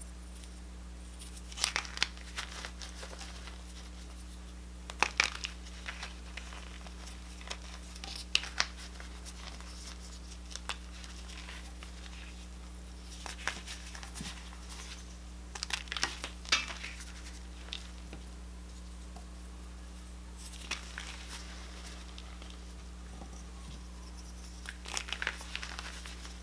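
Reformed gym chalk pieces crushed between fingers, crunching and crumbling in short clusters of crisp crackles every few seconds. A steady low hum runs underneath.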